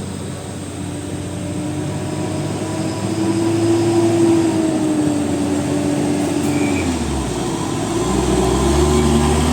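A heavy road vehicle's engine running and growing louder as it approaches. The engine note rises, then drops about seven seconds in as a deeper rumble takes over.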